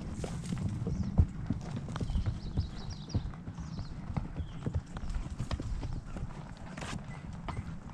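Horse hooves clip-clopping: a run of irregular knocks.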